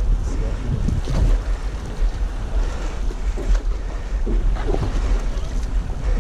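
Wind buffeting the microphone in a steady low rumble, with sea water slapping and splashing against the side of a small aluminium boat and a few short knocks.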